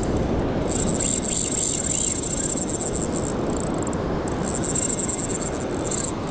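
Shimano Saragosa 10000 spinning reel's drag buzzing in a high, fast-ticking whine as a hooked blacktip shark runs off line toward the backing. It starts about half a second in, stops briefly about four seconds in, then runs again until just before the end, over a steady low rush of noise.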